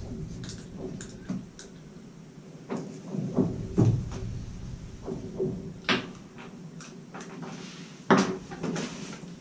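Scattered knocks, clatters and rustles of handling in a small wooden ice shack as a lake trout is unhooked on the plywood floor, the two sharpest knocks coming about six and eight seconds in, over a faint steady hum.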